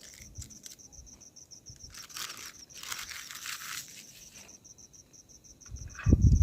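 Crickets chirping, a steady fast high-pitched pulse, with two short bursts of crinkly rustling in the middle and a louder low rumble near the end.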